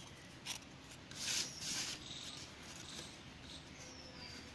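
Cut pieces of cardboard handled and slid on a tabletop: a light tap, then two brief papery scrapes about a second in, and faint ticks after.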